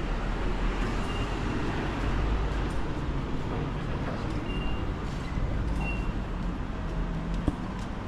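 Steady low rumble of passing vehicles, with a few brief high tones and light clicks.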